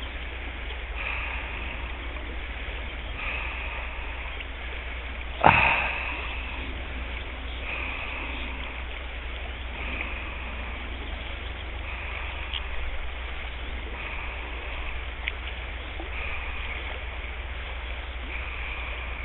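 Shallow river riffle running steadily over rocks, with a single sharp knock about five and a half seconds in.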